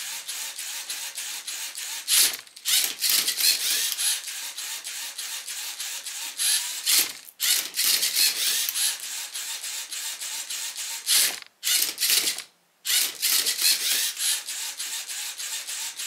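LEGO Mindstorms NXT robot's servo motors and plastic gear trains whirring as it turns and flips a Rubik's cube and moves its colour sensor over it, re-scanning the cube after a failed colour read. The whirring stops briefly a few times, with some sharp clicks between moves.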